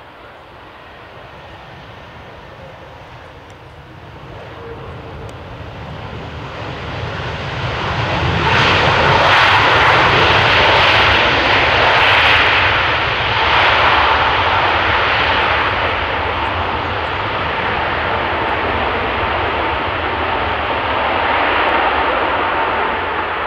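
Boeing 737 MAX 9's CFM LEAP-1B jet engines on a landing: the roar swells as the airliner approaches, is loudest about a third of the way in, then holds at a lower level with a steady whine.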